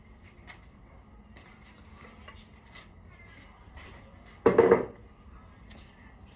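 A brief loud clatter of hard objects, lasting about half a second, some four and a half seconds in, among faint scattered knocks.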